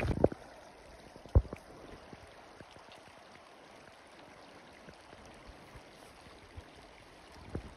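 Faint steady rush of a distant snowmelt waterfall and stream. At the start a few footsteps and trekking-pole knocks on rocky ground, and a single thump about a second and a half in.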